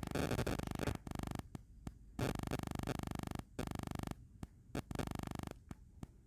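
Electrical buzzing hum that comes and goes in stretches of about a second, with short clicks between them and a faint steady tone underneath.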